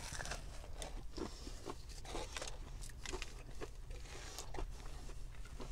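A person biting into and chewing a meat pie, its pastry crunching in a string of short, sharp crackles. The pastry is crisp and crunchy.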